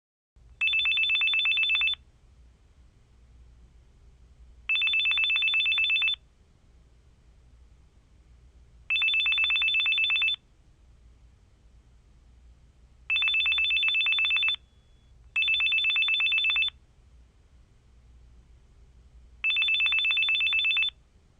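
Telephone ringing: six bursts of a fast, high two-tone trill, each about a second and a half long and mostly about four seconds apart, with two rings closer together near the middle. A faint low hum lies underneath.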